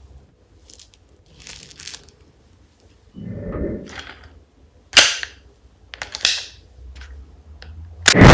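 Toy guns being handled and clicked: a series of sharp clicks and snaps, the loudest about five seconds in. A loud burst of gunshot-like noise starts right at the end.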